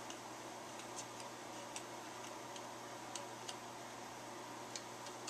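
Scattered light clicks and taps, about ten, irregularly spaced, as a small model starship and its plastic display stand are handled and pushed together, over a steady low hum.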